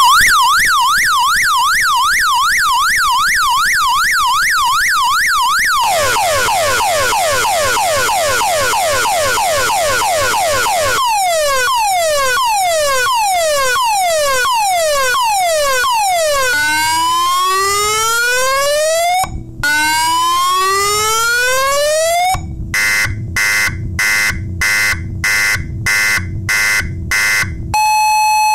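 DNI3330 12 V electronic siren horn stepping through its six tones: a fast warble, then quick falling sweeps, slower falling sweeps, slow rising sweeps, rapid on-off beeping at about two beeps a second, and near the end a two-tone high-low alternation.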